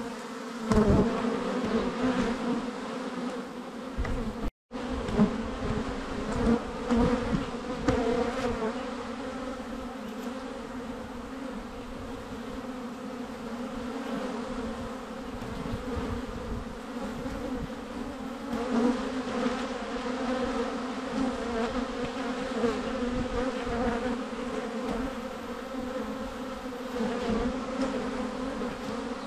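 Honey bees humming as a crowd of them flies and hovers in front of the hive entrance on orientation flights. The hum is steady, with a few low thumps in the first several seconds and a brief dropout to silence about four and a half seconds in.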